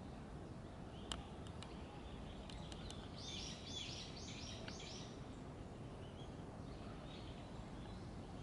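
Outdoor garden ambience: a steady low background rumble with faint bird chirps. About three seconds in, a bird gives a quick run of about six high repeated notes lasting a second and a half, preceded by a few sharp faint ticks.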